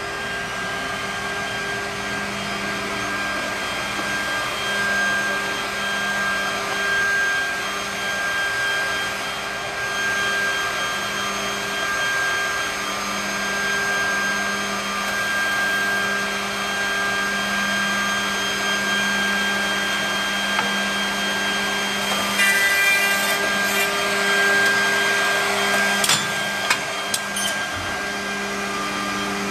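Holz-Her edge bander running: its motors hold a steady, layered whine, having just spun up. About 22 seconds in, a rougher, louder machining noise with a few sharp clicks joins in as a panel's edge is worked.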